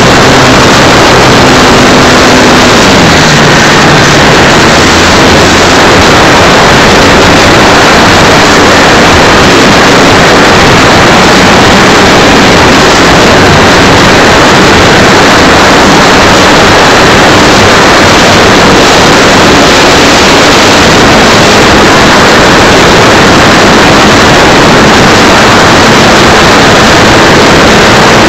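Strong wind buffeting the microphone, a loud, unbroken rush that drowns nearly everything. A faint engine note, most likely the model aircraft's, drops in pitch about three seconds in.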